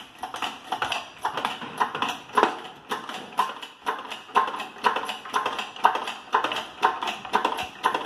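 Steady sledgehammer blows, about two a second, on a steel piece set on the end of a shaft of a VW MQ200 gearbox, each a sharp metallic clank with a short ring.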